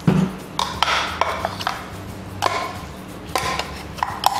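A spoon scraping minced chicken out of a plastic food-chopper bowl into a stainless steel bowl: irregular knocks and clinks of the spoon against the bowls, some ringing briefly like metal.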